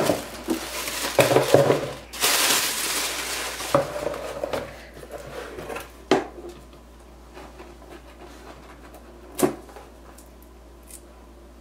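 Tissue paper rustling and crinkling, with light knocks as the box is handled, then a quieter stretch broken by two sharp knocks, about three seconds apart, from the cardboard gift box and its lid being set down and lifted.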